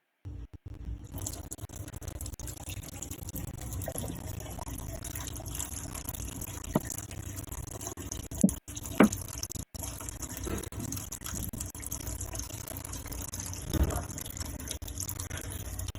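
Running, splashing water with rubbing as a water-soluble label is scrubbed off a container, with a few brief knocks.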